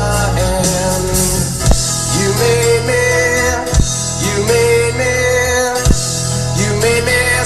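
A rock song playing loud on a car audio system with subwoofers: heavy sustained bass under a melody of sliding, scooping notes, with a sharp drum hit about every two seconds.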